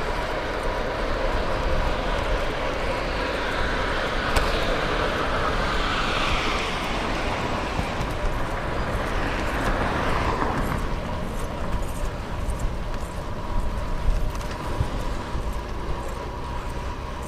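Wind rushing over an action camera's microphone while cycling along a road, with traffic noise that swells and fades as a vehicle passes about midway.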